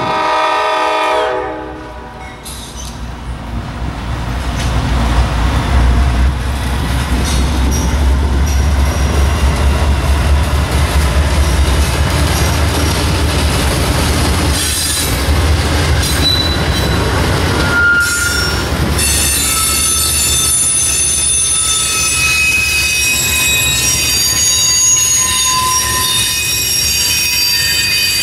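A freight train's horn chord fading out in the first second or two, then diesel locomotives passing with a steady low rumble. From about two-thirds of the way through, the freight cars' wheels squeal with several high, steady tones over the rumble and rail noise.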